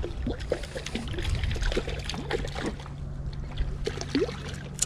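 Water sloshing and splashing among breakwater rocks as a small hooked jack thrashes at the surface, with scattered small irregular splashes and knocks over a steady low hum. A sharp click comes right at the end.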